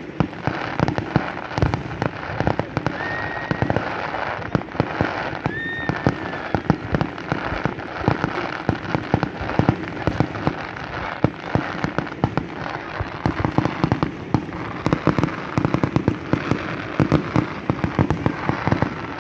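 Fireworks display going off in a rapid, continuous barrage of bangs and crackling from aerial shells and ground-level fountains.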